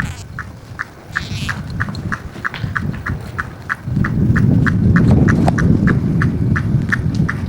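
Electric bike's turn-signal buzzer beeping in an even rhythm, about three short high beeps a second. A low rumble swells up about four seconds in.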